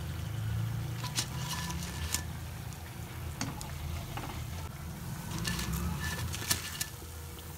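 Hot oil crackling and popping in a kadhai of frying whole raw-banana pakoras. Scattered sharp crackles come in two clusters, about a second in and again near six seconds, over a steady low hum.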